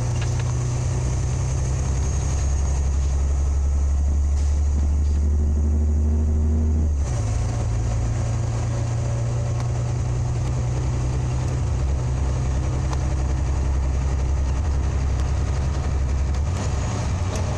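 Scania OmniLink CL94UB city bus's rear-mounted engine running under way, heard from inside the cabin as a steady low drone. About seven seconds in, the engine note changes abruptly to a higher pitch.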